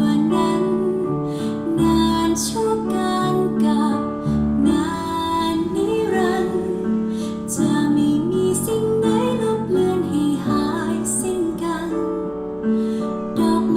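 A Thai ballad played loud through a car's aftermarket speaker system. Steady chords run under a bending melodic lead line.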